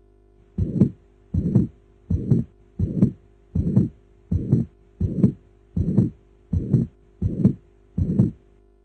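Recorded heart sounds: a steady heartbeat of eleven beats at about 80 a minute, each beat a short double sound, over a faint steady hum.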